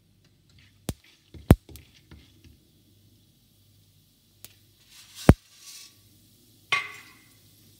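Mustard seeds popping in hot cooking oil in a frying pan: a few scattered sharp pops, the loudest about a second and a half in and about five seconds in, with a short crackle near the end. The popping is the sign that the oil is hot enough for tempering.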